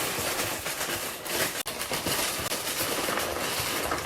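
Crinkling and rustling of a cereal box and its bag being handled, a dense run of small crackles, broken by a brief cut-out about one and a half seconds in.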